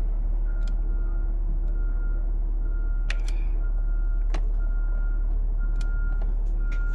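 An electronic warning beeper sounding short beeps at one pitch, about one every 0.7 seconds, over a steady low hum. A few sharp clicks come partway through.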